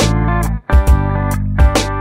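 Background music: a guitar-led instrumental with percussive beats, briefly dropping out about half a second in.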